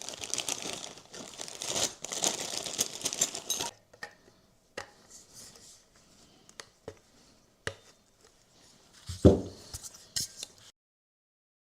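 Crinkling and rustling of handled material for about four seconds, then a few scattered light clicks and taps of small parts, and a louder knock about nine seconds in.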